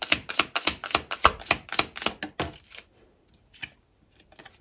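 Tarot cards being shuffled by hand: a quick run of crisp clicks and slaps, several a second, thinning to a few scattered taps about three seconds in.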